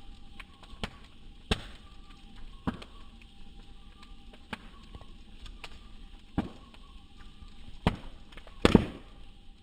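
Bonfire crackling: burning wood pops sharply every second or two over a soft steady hiss, with the loudest, a double pop, near the end.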